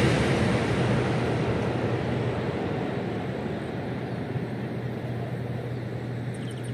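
Rushing noise of a CRRC high-speed electric train that has just passed at speed, fading steadily as it recedes, over a steady low hum.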